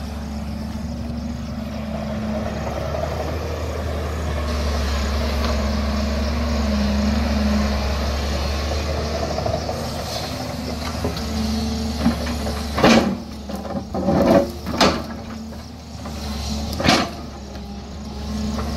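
JCB tracked excavator's diesel engine running steadily under load as it digs into the hillside. In the last third, several loud knocks and scrapes of the steel bucket against rock and stone.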